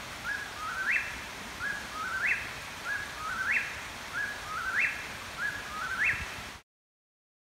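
Eastern whip-poor-will singing: its three-part call, ending in a sharp upward sweep, repeated six times about once a second over a faint steady hiss of night background. The sound cuts off abruptly near the end.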